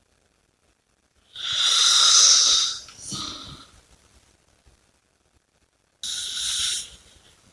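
A person snoring and breathing heavily. A long, hissing breath comes about a second and a half in and runs straight into a shorter breath with a low snore. Another hissing breath follows near the end.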